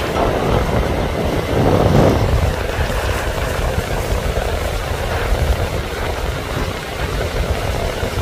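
Strong wind buffeting the microphone over the steady rush of breaking surf, swelling briefly about two seconds in.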